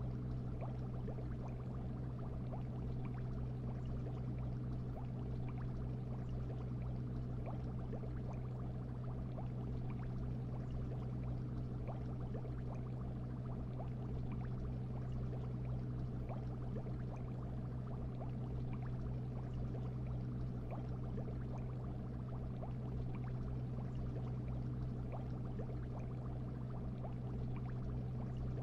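Aquarium filter and air pump running: a steady low hum with constant fine bubbling and tiny popping ticks of water.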